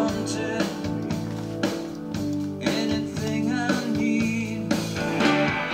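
Playback of a rock band recording being mixed: drums, guitar and a singing voice.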